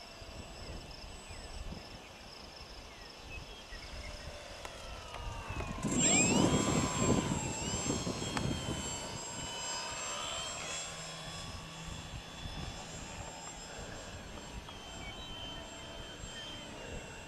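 Small RC aerobatic profile airplane's motor whining in flight, its pitch gliding up and down with the throttle. It is loudest from about six seconds in, when it swells sharply and then slowly fades, with a low wind rumble under it.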